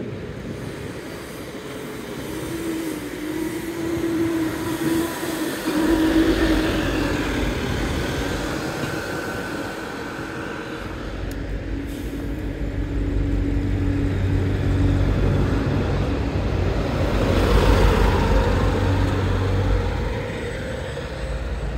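A tram running past on its rails. It gives a steady whine for the first few seconds, then a heavy low rumble that swells to its loudest about three-quarters of the way through.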